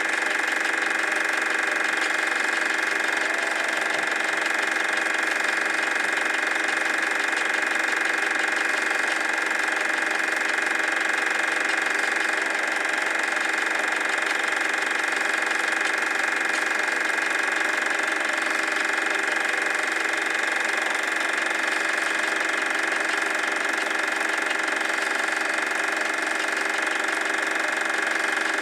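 Super 8 film projector running: a steady mechanical whir from its motor and film transport, with a high hum held at one pitch.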